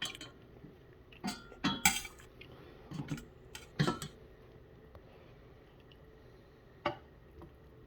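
Scattered metal clinks and clatters of dishes and utensils being handled with a pair of steel pliers: about half a dozen sharp knocks, bunched in the first four seconds, with one more near the end.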